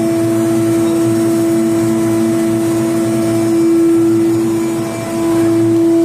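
Steady electrical hum with one strong held tone from an induction melting furnace's power equipment running, heard at its control panel.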